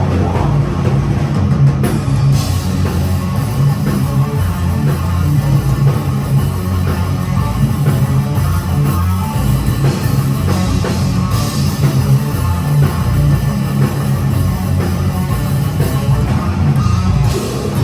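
Death metal band playing live: distorted electric guitars, bass and a drum kit, loud and dense with a heavy low end.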